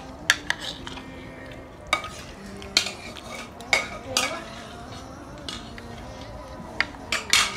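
Metal spoon clinking and scraping against a ceramic plate while eating, about ten irregular sharp clinks.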